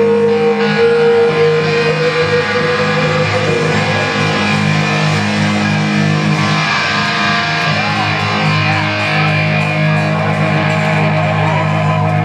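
Live rock band playing an instrumental stretch with no vocals, the electric guitar to the fore. A long note is held over the first few seconds, then the guitar and band carry on at a steady level.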